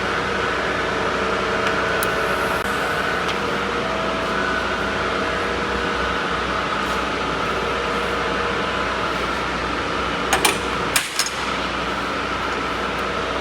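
Argon (TIG) welding equipment running with a steady electrical hum and hiss, with a few sharp clicks about ten seconds in.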